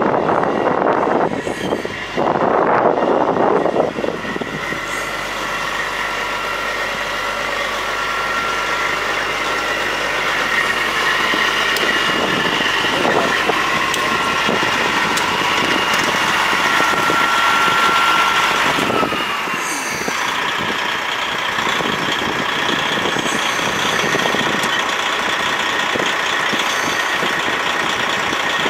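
Diesel engine of a 1996 Freightliner FLD120 grain truck running steadily at idle, with a steady whine over it. Near the start there are a few seconds of loud buffeting. About two-thirds of the way in the sound shifts and settles into a new steady note as the hydraulic hoist raises the grain box.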